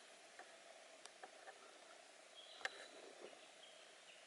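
Near silence in forest: faint background with a few soft clicks, one sharper click a little past halfway, and a faint high note around the same moment.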